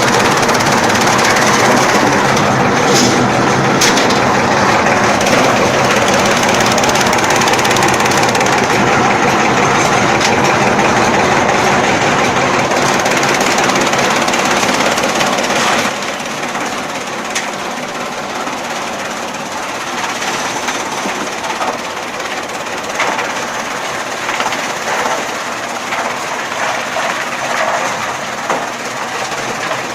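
Chaff cutter running with a loud, continuous mechanical clatter. About halfway through the sound drops and thins, with uneven knocks after that.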